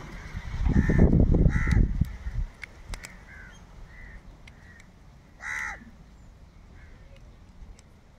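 Crows cawing several times, the loudest call about five and a half seconds in, with fainter calls farther off. A low rustling noise comes in the first two seconds.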